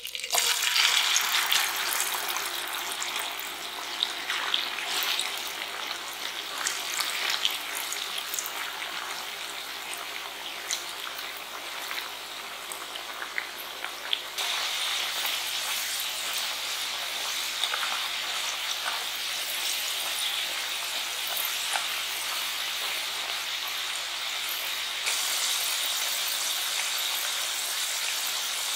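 Raw potato sticks sizzling in cooking oil at about 140°C. The sizzle starts suddenly and is loudest as they go in, then settles into a steady bubbling hiss with scattered small pops.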